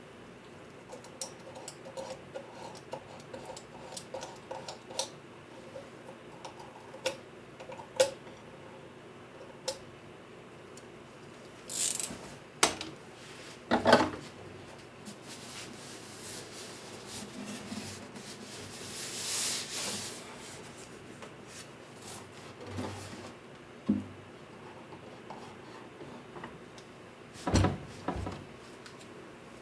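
Workbench handling sounds on a guitar under repair: wood rubbing and a few rasp-like strokes, with scattered clicks and several louder knocks.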